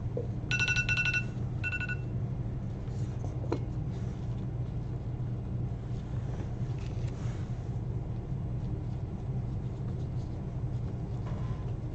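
Electronic timer beeping: a quick run of high beeps, then a shorter second run, in the first two seconds, over a steady low hum.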